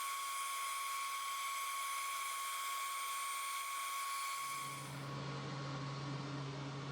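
A small high-speed electric tool running with a steady high whine. About four and a half seconds in, it gives way abruptly to a steady low electric hum.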